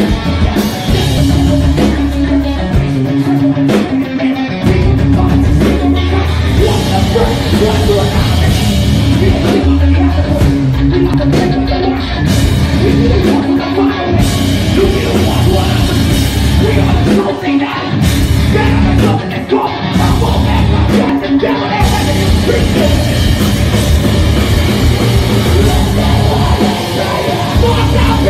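Live rock band playing loud: electric guitar, drum kit and a singer on the microphone.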